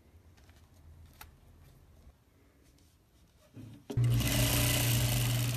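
Industrial single-needle lockstitch sewing machine: a few faint clicks as the needle is threaded, then about four seconds in the machine starts stitching, a loud steady run over a low motor hum.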